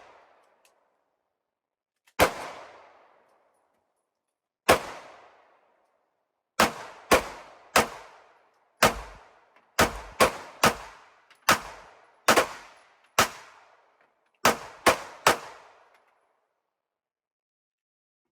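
Glock 43X 9mm pistol firing about fifteen shots, each with a short echoing tail: the first few come a couple of seconds apart, then they come faster, some in quick pairs, until the string stops about 15 seconds in.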